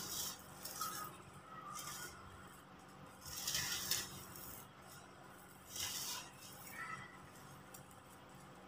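Dry, crumbly yellow soil lumps crushed by hand, with the grit pouring and trickling through the fingers in several short crunchy, gritty bursts.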